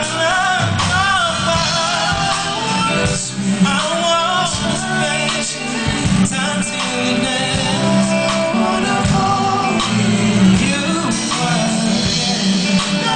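Male R&B singer singing live with a full band, his voice bending through sustained, wavering runs over a steady bass and keyboard accompaniment.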